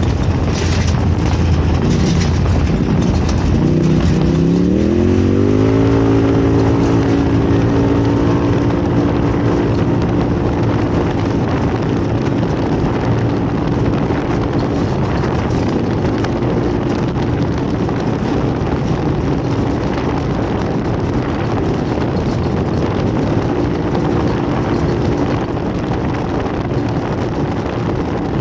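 Off-road race vehicle's engine heard from on board, rising in pitch as it accelerates about four to six seconds in, then running steadily at speed over a constant rushing noise.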